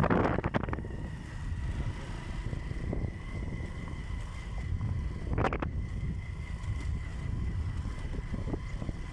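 Wind buffeting the microphone in a steady low rumble, with stronger gusts just after the start and about five and a half seconds in, and a faint steady high tone underneath.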